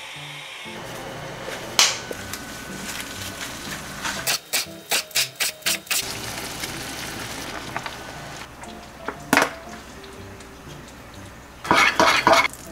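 Kitchen knife chopping rolled perilla leaves on a cutting board, a quick run of about seven chops, roughly four a second, under background music. Near the end a metal spoon scrapes and clinks as it stirs a chili-paste sauce in a small ceramic bowl.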